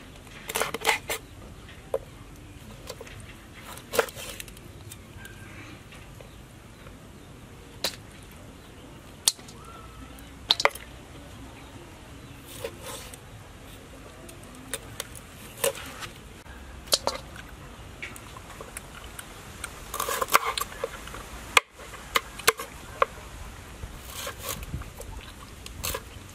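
Scattered knocks and clicks of a kitchen knife cutting cooked quail on a wooden cutting board, with the pieces being handled into a wok. The knocks come singly every second or two, with a denser run of them a little past two thirds of the way through.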